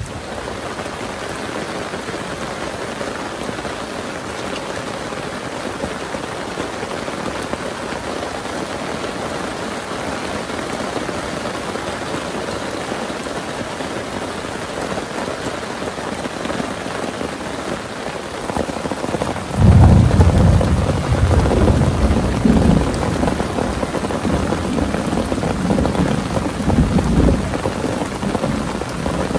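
Steady heavy rain falling. About twenty seconds in, a deep rumble of thunder starts suddenly, becomes the loudest sound, and rolls on, swelling and fading.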